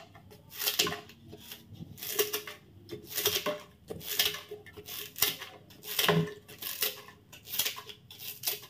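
Scissors snipping pandan leaves into short pieces, a quick sharp snip repeated at an irregular pace of about one to two a second.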